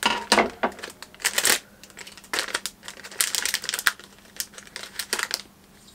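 Foil blind-bag packet crinkling and crackling in irregular bursts as it is handled and opened by hand, dying down near the end.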